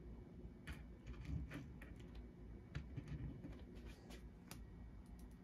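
A handful of faint, scattered clicks and taps as small brass standoffs and the circuit board are handled on the mat, over a low steady background hum.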